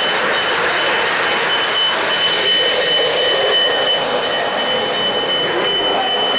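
O-gauge model passenger train running on three-rail track: a steady rolling and motor noise with a thin, steady high whine over it.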